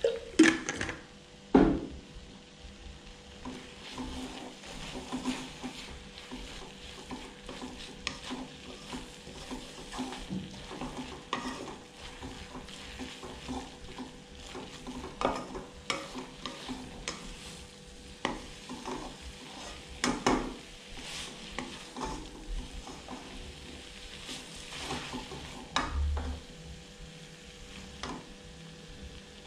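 Instant noodles being stir-fried in a wok: a utensil stirring and scraping through them every second or so over a light sizzle, with two loud knocks against the pan near the start.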